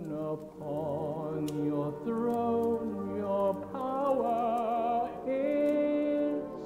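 A slow ballad: a solo voice holds long, wavering notes with vibrato over soft instrumental accompaniment.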